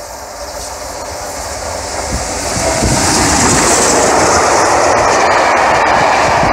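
BR Standard Class 7 Pacific steam locomotive No. 70000 Britannia passing at speed with a train of coaches. It grows louder as it approaches, is loudest about three seconds in as the engine goes by, then gives way to the steady noise of the coaches' wheels running past on the rails.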